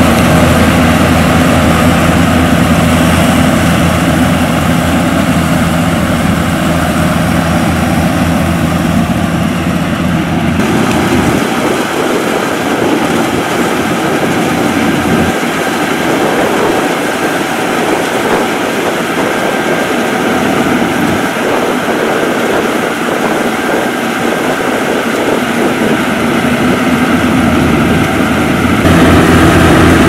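Yanmar AW70GV crawler combine harvester running as it cuts rice, a loud steady engine hum. About ten seconds in the deep hum falls away, leaving a rougher, noisier machine sound, and the deep hum comes back near the end.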